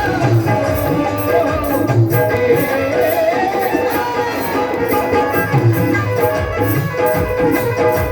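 Indian devotional bhajan music: a wavering melody line over a steady hand-drum beat.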